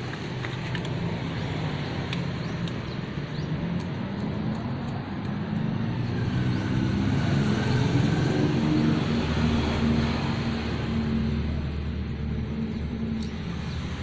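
Low rumble of a motor vehicle engine running nearby, growing louder about halfway through and easing off near the end, with a few faint clicks.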